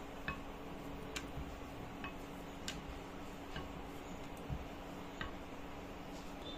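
Light clicks and knocks, a little more than one a second, from a wooden rolling pin working a puri on a metal rolling board.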